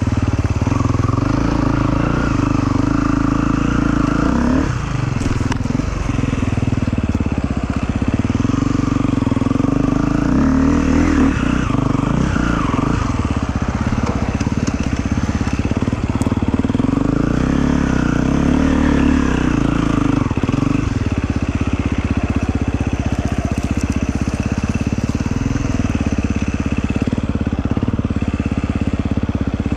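Motorcycle engine running, with the revs rising and falling twice, about a third and two-thirds of the way in.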